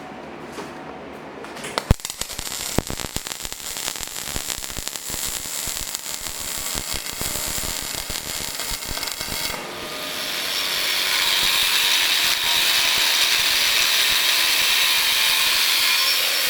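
Weld cleanup on a welded steel swing arm: metal scraping and knocking off slag, heard as a rapid run of irregular clicks and scrapes. About ten seconds in this gives way to a steady, louder hissing rasp.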